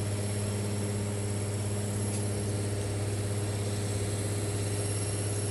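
Steady low mechanical drone from running machinery, holding one pitch and level throughout.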